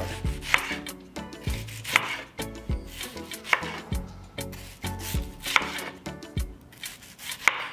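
Knife slicing onions into rings on a cutting board: a string of sharp, irregularly spaced chops, about one every half second to a second.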